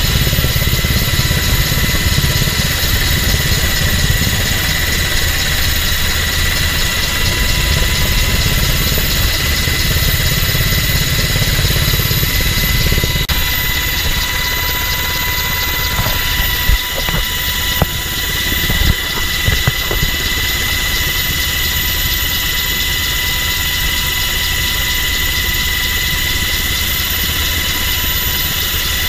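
MH-60 Jayhawk helicopter heard from inside its cabin with the door open: steady rotor and twin turboshaft engine noise with a constant high whine. A few short knocks come a little past the middle.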